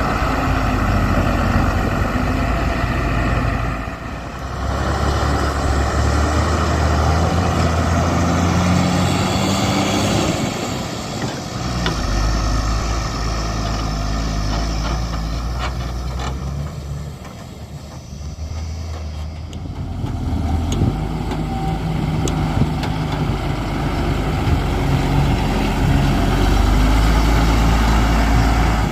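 Heavy diesel engine of a JCB backhoe loader working, its revs rising and falling with the load. It eases off about 4 seconds in and again around 17 to 19 seconds, then pulls hard near the end.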